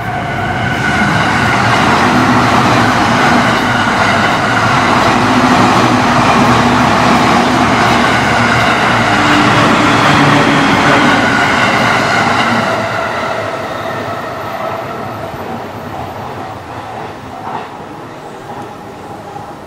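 Electric commuter train running past a level crossing close by. The sound is loud for about ten seconds, then fades as the train moves away.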